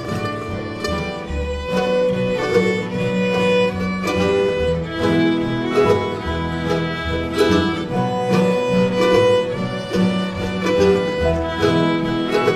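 Bluegrass string band playing an instrumental break: the fiddle plays long bowed notes in the lead over strummed acoustic guitar and upright bass.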